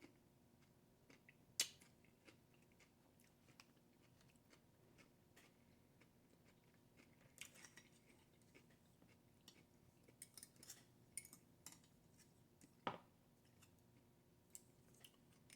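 Near silence with faint eating sounds: scattered small clicks and short crunchy ticks from chewing, bunched in a few short clusters, with one sharper click near the end.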